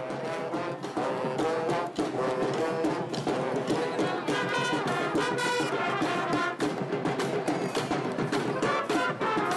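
Marching band playing, with brass horns carrying the tune over a steady beat of drums.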